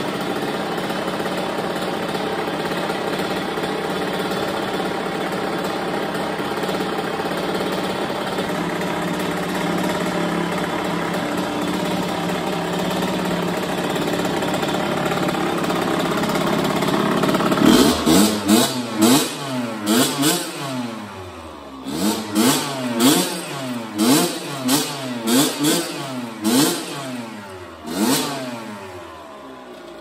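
Freshly rebuilt two-stroke single-cylinder engine of a 2005 Kawasaki KX85 dirt bike idling steadily, then from about two-thirds of the way in revved in a rapid series of about a dozen sharp throttle blips, each rising and falling in pitch, before settling back toward idle.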